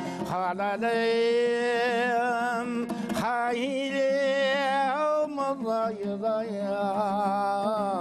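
A man singing a Kazakh folk song in long held notes with a wavering pitch, over a strummed dombra.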